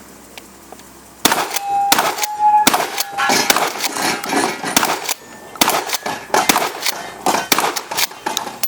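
A rapid string of 12-gauge shotgun shots begins about a second in, roughly one or two a second, with steel targets ringing briefly after some of the hits.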